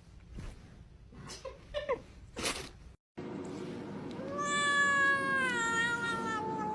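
A cat's long, drawn-out meow, slowly falling in pitch, starting about four seconds in after a few faint short sounds.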